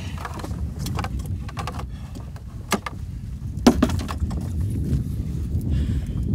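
Low wind rumble on the microphone with a scatter of sharp clicks and knocks from the landing net's frame and handle against the boat as a trout is netted and lifted aboard; the loudest knock comes a little past halfway.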